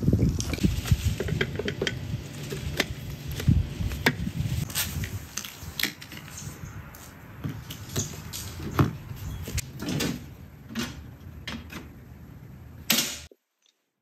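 Portable generator on wheels rumbling and clattering as it is rolled over paving stones, then scattered clicks and knocks as a heavy 50-amp power cord plug is pushed into the generator's outlet and fitted. A sharp click near the end, then the sound stops abruptly.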